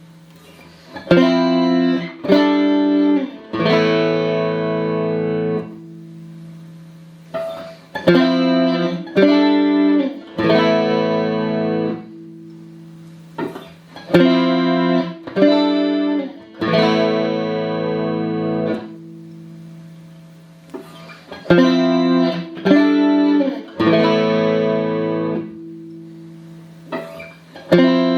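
Clean electric guitar played through a Boss CE-5 Chorus Ensemble pedal into two Roland JC-120 amps in stereo. It plays a repeating phrase of three short chords followed by one chord left to ring for a couple of seconds, about every six to seven seconds.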